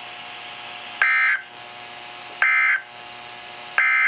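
Three short bursts of EAS/SAME digital data tones from a NOAA Weather Radio broadcast, each under half a second and about a second and a half apart: the end-of-message signal that closes the Required Weekly Test. Faint steady radio hiss runs between the bursts.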